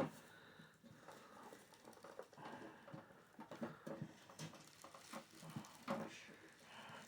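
Faint scattered clicks and light knocks of a small-form-factor PC case being handled, its trays and panels tapping and shifting as they are worked loose.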